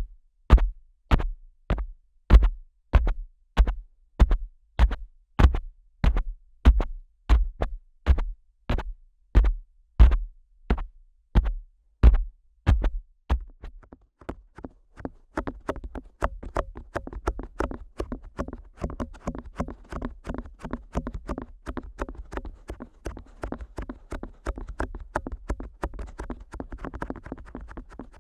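Fingers working the tragus of a Neumann KU100 dummy-head microphone's ear: a deep thump about twice a second, each one a press against the mic's ear. About halfway through it changes to quicker, lighter tapping and rubbing on the ears that runs on without a break.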